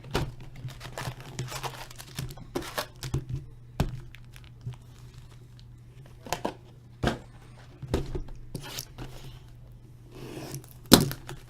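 Hockey card boxes being opened by hand: plastic wrap and cardboard tearing and crinkling, with irregular clicks and knocks of the boxes being handled, the sharpest one near the end.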